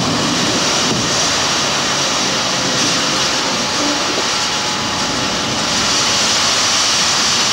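Aluminium factory running at night: a loud, steady, unbroken industrial roar with a strong hiss high up and no separate bangs. This is the factory noise that the neighbouring residents complain of.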